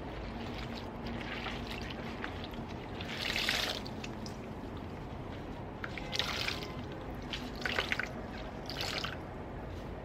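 Water splashing and dripping as a wet chenille microfiber glove is squeezed and worked in a basin of water: a few short splashes, the loudest about three and a half seconds in and others near six, eight and nine seconds, over a steady low background hum.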